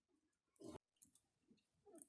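Near silence, with a short rush of noise just under a second in that cuts off suddenly, and a few faint clicks.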